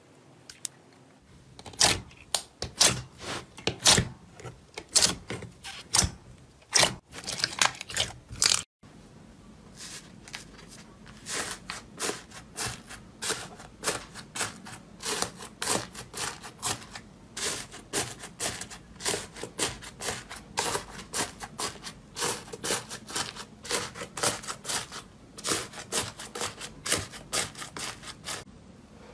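Slime being squeezed and poked by hand, giving off strings of sharp clicking, crackling pops as trapped air bursts. A brief silent break comes about nine seconds in, after which the pops go on more evenly, several a second.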